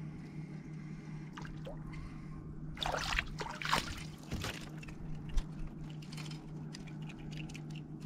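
Water splashing and trickling close at hand, loudest in a short spell about three to four and a half seconds in, followed by scattered small drips and ticks.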